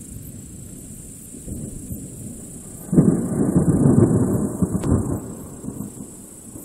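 Thunder: about three seconds in a sudden loud, low rumble breaks out over a quieter steady background, rolls for a couple of seconds and dies away.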